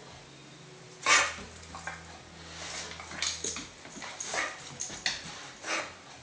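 Dog coughing: one loud hack about a second in, then a run of shorter, uneven hacks through the rest of the bout. This is a recurring coughing episode that the owner thinks may be kennel cough.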